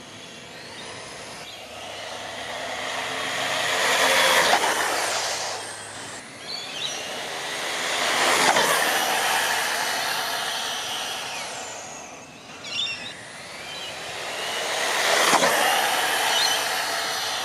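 Brushless electric motor of an RC buggy on a 3S LiPo whining at full throttle on top-speed runs. It passes three times, each time swelling as it approaches and dropping in pitch as it goes by.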